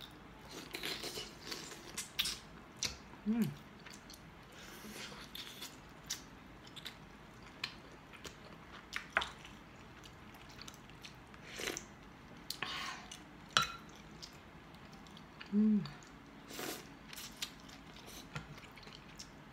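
Close-up eating sounds: a person chewing and biting soft chicken, with wet mouth clicks and occasional slurps of broth from a wooden spoon. A short voiced hum comes twice, about 3 s in and about 16 s in.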